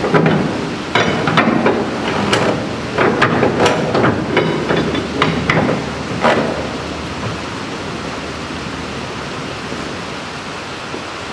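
Irregular clicks and knocks of a cargo strap and its hardware being worked and tightened over a tarped steel coil at a flatbed trailer's side rail, stopping about six seconds in. A steady hiss runs underneath.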